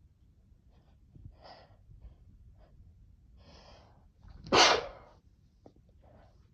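A person sneezing after sniffing Chhinkni sneezing powder: two breathy in-breaths, then one loud sneeze about four and a half seconds in, followed by a few faint breaths.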